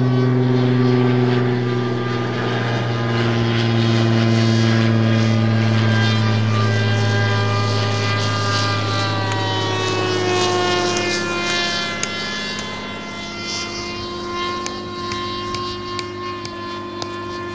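Nitroplanes Kangaroo radio-control plane's engine and propeller droning steadily in flight. The pitch slowly sinks over the first ten seconds or so, and the sound grows quieter over the last few seconds.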